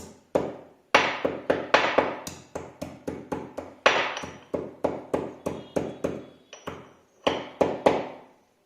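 Cardamom pods and cloves being crushed with a pestle: a run of sharp knocks about three a second, with a short pause about seven seconds in.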